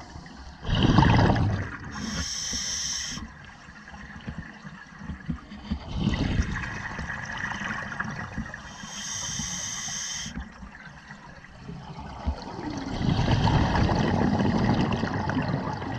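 Scuba diver breathing underwater through an open-circuit regulator: a short hissing inhale, then a gurgling rush of exhaled bubbles, repeating about every six to seven seconds.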